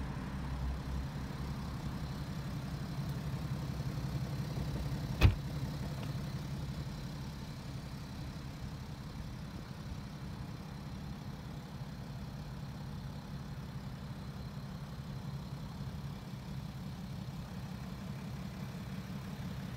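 A car door shutting with one solid thump about five seconds in, over a steady low rumble.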